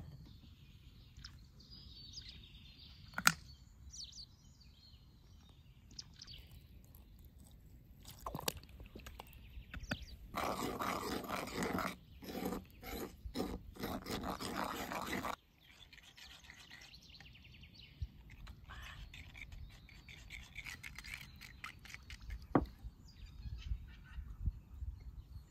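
A basting brush and then a metal spoon mixing spices and a liquid marinade in a ceramic bowl, scraping and stirring, with a louder stretch of about five seconds midway broken by short gaps. Birds chirp in the background.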